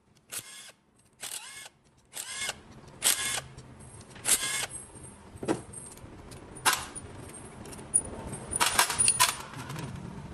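A series of sharp metallic clinks and rattles, about one a second with a quick cluster near the end, as valve-train parts are handled and worked with a tool in a five-valve motorcycle cylinder head. A low steady hum sets in a couple of seconds in.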